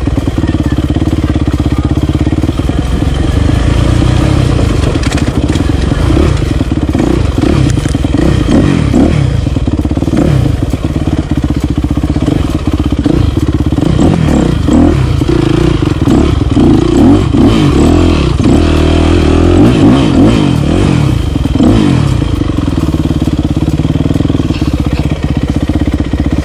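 Yamaha YZ dirt bike engine revving up and down as it is ridden along a dirt trail, heard close up from on the bike.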